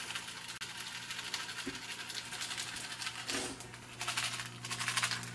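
Mini M&M's rattling in their plastic tube as it is shaken over pancake batter, in quick clicking bursts that thicken a little past halfway, over a steady low hum.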